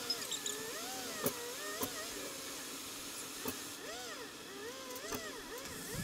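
Car driving, heard from inside: a steady road-noise hiss with a few sharp knocks, and a repeated rising-and-falling tone over it.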